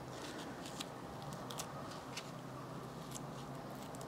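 Scattered faint clicks and small snips of scissors trimming a syngonium stem cutting, with light handling of the cutting.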